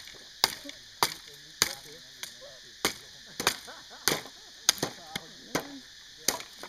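Machete chopping a dead branch for firewood: about eleven sharp blows in a steady rhythm, roughly one every 0.6 seconds.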